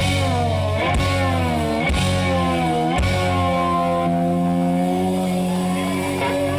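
Live blues-rock band playing, led by an electric guitar that bends its notes up and down and then holds one long note from about three seconds in.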